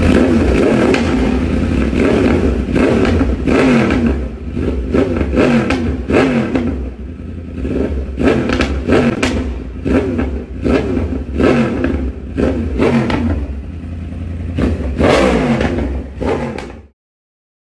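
Yamaha YZF inline-four sport bike through an SC Project CR-T exhaust, revved again and again in short, sharp blips, each rising and dropping back, about a dozen in all. It cuts off suddenly near the end.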